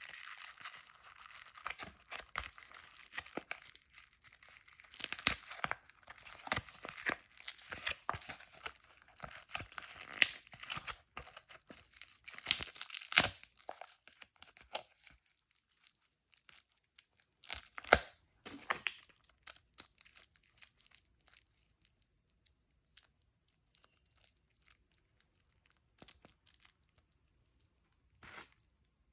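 Plastic candy wrapper being torn open and crinkled by hand: a dense run of crinkling and sharp crackles that thins out after about fourteen seconds, with one more burst around eighteen seconds and then only scattered faint taps.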